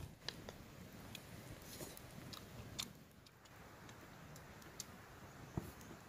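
Wood campfire crackling faintly, with scattered irregular snaps and pops and one sharper pop about five and a half seconds in.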